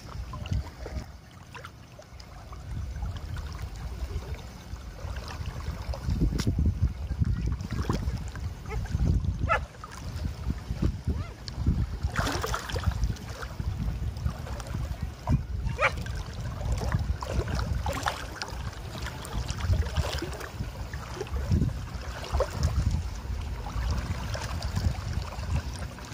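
Water sloshing and splashing as people wade through shallow, knee-deep water, with a few sharper splashes about halfway through. Wind buffets the microphone underneath as a low, uneven rumble.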